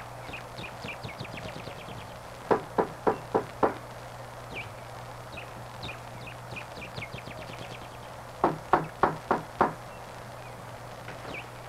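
Two runs of five loud knocks, about a third of a second apart, the first run near the start and the second about six seconds later. Between them a bird repeats short falling chirps in series that speed up, over a steady low hum.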